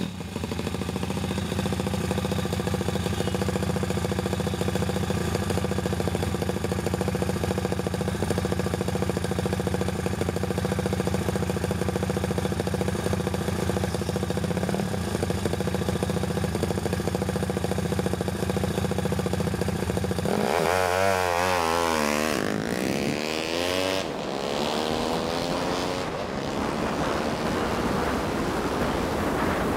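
Honda Monkey Z50 with a 178cc Takegawa four-valve single-cylinder engine running steadily at low speed. About 20 seconds in it revs up and accelerates away, its pitch rising and wavering, and wind and road noise then take over.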